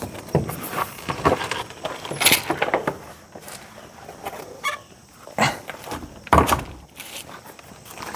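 Fiberglass exterior door being handled and laid on its side: a string of short knocks and thumps, the heaviest two a little after five and six seconds in.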